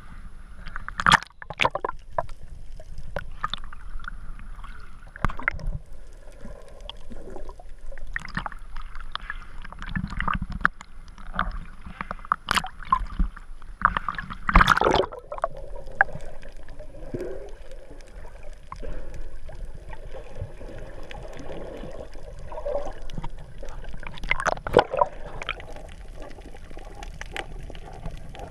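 Seawater sloshing and splashing over a waterproof action camera held at the surface, with a handful of sudden sharp splashes from waves and swimmers.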